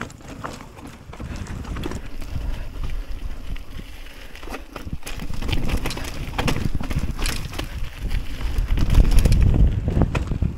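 Mountain bike ridden over a rough, stony trail: wind rumbling on the microphone, with frequent rattles and knocks from the bike, getting louder in the second half.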